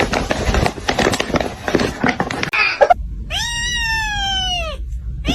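About three seconds of crackling, rustling noise, then a cat gives one long, high meow. A second meow starts right at the end.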